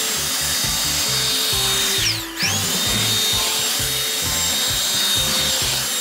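Dreame V11 cordless stick vacuum running with a high whine, its small motorized brush head sucking spilled grit off a desk. About two seconds in the motor spins down for a moment and winds back up.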